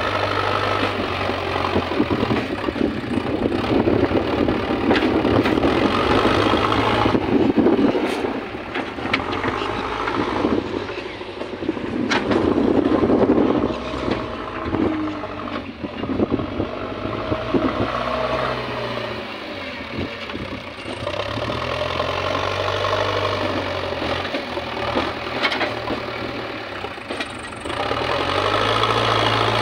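JCB backhoe loader's diesel engine running close by, its note rising and falling several times as the front loader lifts, carries and tips bucket loads of soil.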